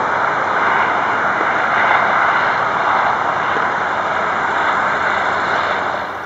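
Radial engines of a three-engined Junkers Ju 52/3m running hard as it flies low past, a steady loud roar that cuts off suddenly at the end.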